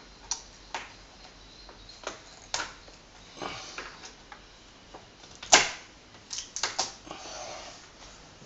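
Hand screwdriver driving a short screw through a blind bracket into a timber door architrave: scattered sharp clicks and short scrapes as the screw is turned, the loudest click a little past halfway.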